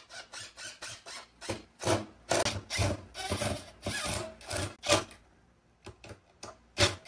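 Cordless drill driving pocket screws into wooden posts in a series of short bursts. Toward the end only a few brief clicks are left.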